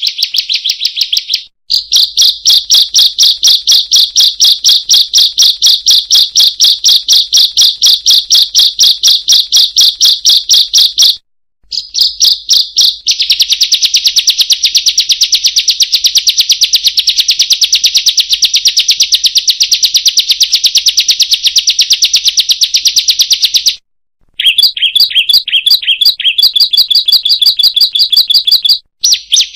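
Ciblek (bar-winged prinia) calling in long, fast runs of sharp, high 'kriek' notes, repeated many times a second. The runs break off briefly three times.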